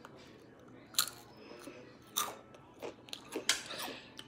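Takis rolled tortilla chip being bitten and chewed with the mouth close to the microphone: several sharp crunches about a second apart, the loudest about a second in and three and a half seconds in.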